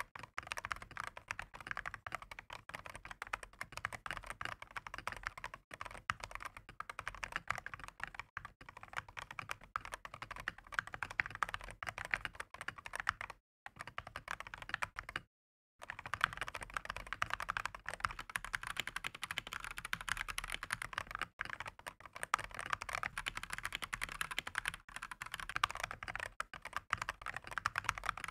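Typing on a Redragon K668 full-size mechanical keyboard with lubed switches and stabilizers and thick PBT XDA-profile keycaps: a continuous run of rapid keystrokes. The sound cuts out twice for a moment about halfway through.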